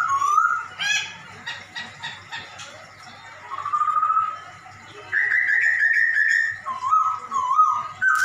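Poksay Hongkong laughingthrush singing runs of repeated, wavering slurred whistles that rise and fall in pitch, in a song that mimics a cat's meow, with short pauses between phrases.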